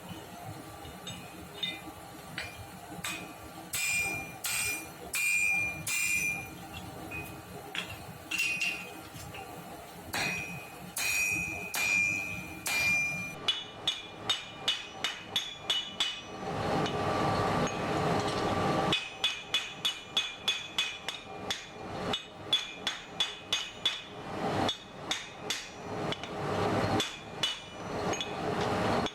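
Hand-forging of an axe head: a hammer striking hot steel on an anvil. For about the first half the blows are scattered and each rings high. After that they come in a steady rapid run of about two to three a second, with a rushing noise for a few seconds in the middle.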